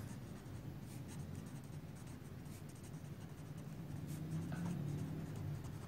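Marker pen writing on paper: faint, quick scratchy strokes as letters are written.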